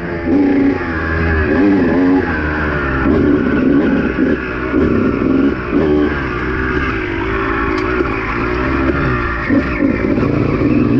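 Honda two-stroke dirt bike engine being ridden, its pitch rising and falling over and over as the throttle is opened and closed.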